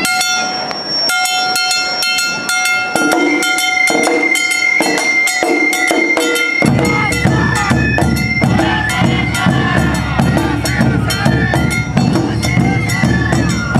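Awa Odori narimono band playing: fast, steady strikes of the kane hand gong ringing, with a high shinobue flute line coming in. About six and a half seconds in, the shime-daiko and ōdaiko drums join with a sudden heavy beat.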